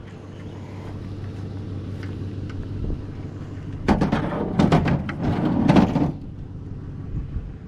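Curbside scrap being handled and loaded into a truck: about two seconds of clattering and banging starting about four seconds in, over the steady hum of an idling vehicle engine.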